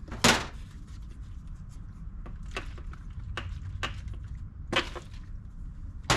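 Sharp knocks and clicks of a lawn mower's fuel tank being wiggled loose and handled: one loud knock just after the start, then about five lighter ones at irregular gaps.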